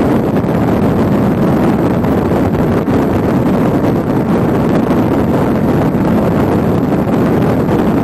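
Steady wind rushing and buffeting against the microphone, an even roar with no clear motor tone.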